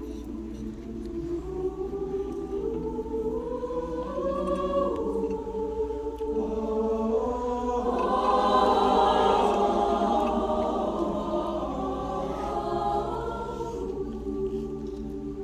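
Mixed choir singing long held chords, swelling to its loudest about halfway through and then easing off.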